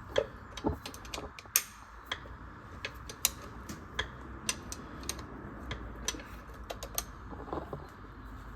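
Socket ratchet clicking in sharp, irregular ticks, roughly two a second, as a bolt is tightened.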